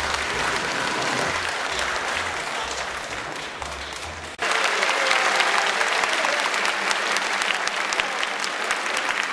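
Audience applauding: dense, steady clapping. About four seconds in it cuts abruptly to louder clapping.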